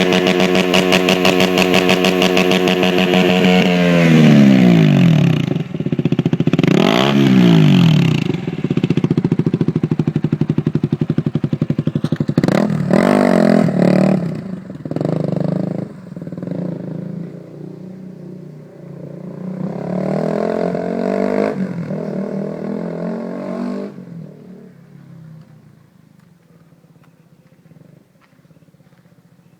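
KTM Duke 200's single-cylinder four-stroke engine through a free-flow exhaust, held at high revs for about four seconds and then dropping away. Three separate throttle blips follow, each rising and falling in pitch. Near the end the sound fades to a faint level.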